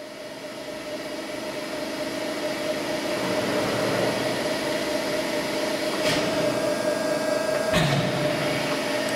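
Haco CNC hydraulic press brake running, its hydraulic unit giving a steady hum with a clear mid-pitched tone that grows louder over the first few seconds. Two sharp clicks come about six and eight seconds in, the second with a dull thump, as the machine is worked from its control stand.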